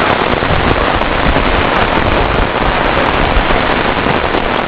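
Heavy rain falling steadily and pattering on an umbrella overhead, a dense even hiss of drops with no break.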